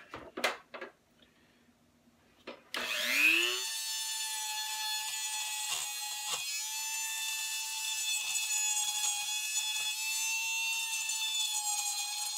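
A few handling knocks, then a corded rotary tool with a flex-shaft attachment whines up to speed about three seconds in and runs at a steady high pitch, with a couple of brief catches as it touches the wooden rifle stock.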